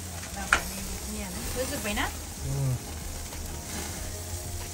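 Marinated chicken thighs sizzling steadily on the grates of a gas barbecue grill, with one sharp click about half a second in.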